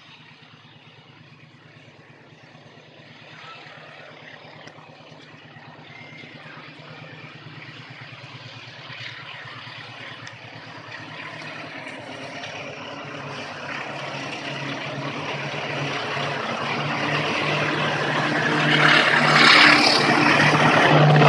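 Diesel locomotive hauling passenger coaches approaching on the line, its engine running with a steady low drone that grows steadily louder as it draws near.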